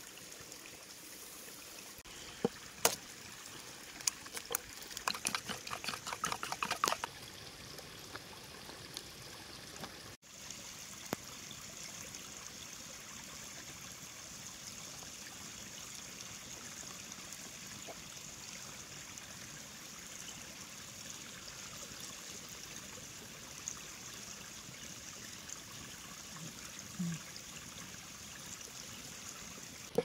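Steady trickle of a small running stream. Between about two and seven seconds in, a run of sharp light clicks and taps from food being handled in wooden bowls.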